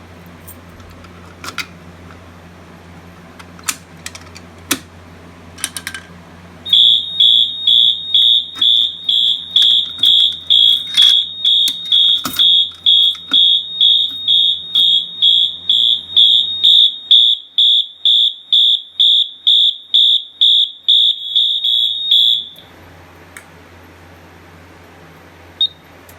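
Wheelock MT fire alarm horn sounding in march time: a high electronic tone pulsing evenly about twice a second for roughly sixteen seconds, then cutting off suddenly. A few clicks come before it starts.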